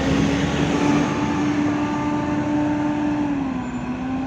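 Irisbus Citelis 12M city bus under way, heard from inside the cabin: engine and drivetrain running with a steady whine over road rumble. The whine dips slightly in pitch about three seconds in.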